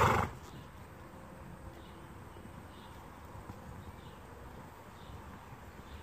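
A brief loud burst of noise right at the start, then a low, fairly even background with faint hoofbeats of a horse moving on sand.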